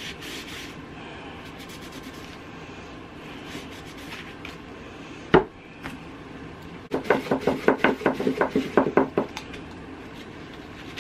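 Paper towel rubbed hard over a painted wooden frame, scrubbing the paint off to give a chippy, distressed finish. A steady low rubbing, one sharp knock about five seconds in, then a quick run of back-and-forth scrubbing strokes, about five a second, for a couple of seconds.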